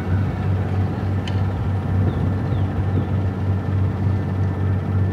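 River cruise boat's engine running steadily with a low, even hum, heard from on board.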